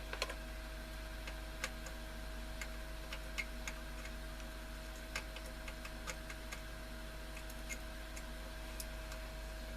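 Light, irregular clicks and ticks from handling a transistor radio's chassis and alignment tool while its oscillator coil is adjusted, over a steady low hum.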